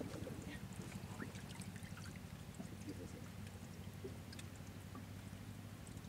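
Faint trickling and dripping of water as a wet cast-net line is drawn in by hand, with scattered small ticks over a steady low rumble.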